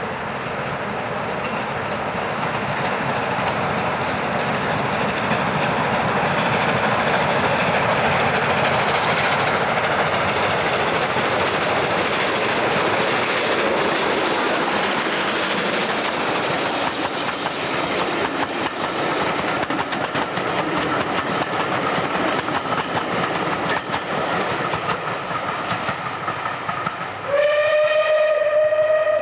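USATC S160 2-8-0 steam locomotive no. 2253 hauling a passenger train past: the noise of the engine and train swells as it nears and passes, then fades as the coaches roll away with a clicking of wheels on the rails. Near the end a steam whistle sounds one long note, rising slightly as it starts.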